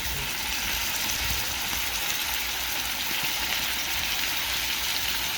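Hassa fish and curry masala sizzling steadily in a hot pot, an even frying hiss.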